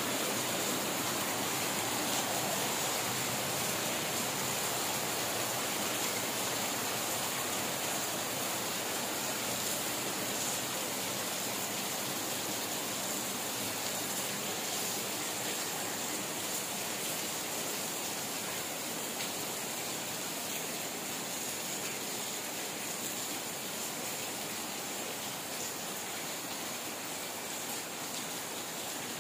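Steady rain falling, an even continuous hiss that fades very slightly toward the end.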